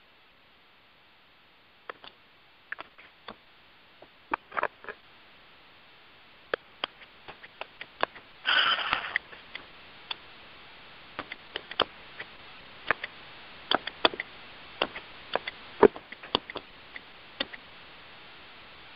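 Scattered, irregular clicks and taps over a faint steady hiss on an open telephone conference line, with the clicks coming more often in the second half. About eight and a half seconds in there is a half-second rush of noise.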